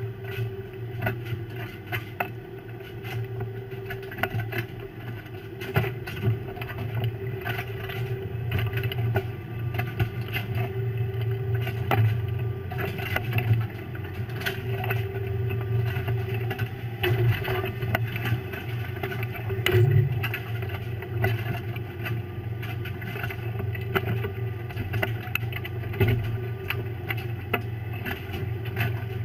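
A fishing boat's engine running with a steady low hum, under the frequent clicking and clattering of snow crab shells as the catch is handled and sorted on deck.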